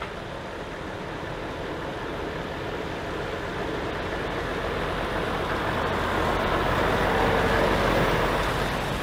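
Volvo diesel truck pulling a three-axle semi-trailer, driving slowly past: engine hum and tyre noise on the wet road grow steadily louder as it approaches, loudest about eight seconds in as it passes close, then start to fade.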